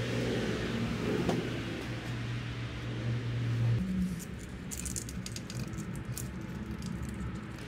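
A steady low hum that stops about four seconds in, then light clicks and rustling as wiring and plastic connectors behind a headlight are handled.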